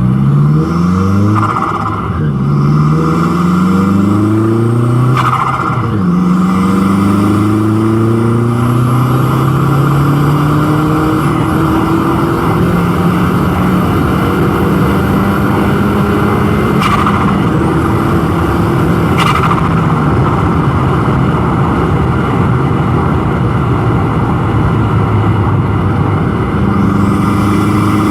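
Volkswagen Golf GTI's turbocharged engine, with an aftermarket intake, accelerating hard through several gears. The engine note climbs and drops back at each upshift, with short turbo flutter bursts at several of the shifts. After that it pulls more steadily in a higher gear.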